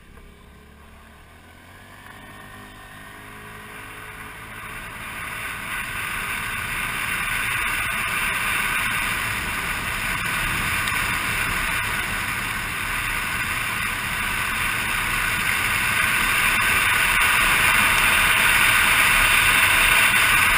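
Motor scooter pulling away and picking up speed. The engine and the rush of air grow steadily louder over the first eight seconds or so, then hold steady at riding speed.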